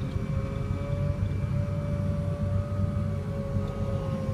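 Caterpillar 950 wheel loader running, heard from inside the cab: a steady low diesel rumble with a whine on top that drifts slowly up and down in pitch.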